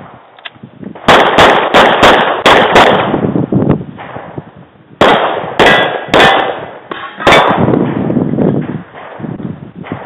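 Semi-automatic pistol fired in quick strings: six shots in about two seconds, a pause of about two seconds, then four more spaced shots. Some hits are followed by a brief metallic ring from steel targets.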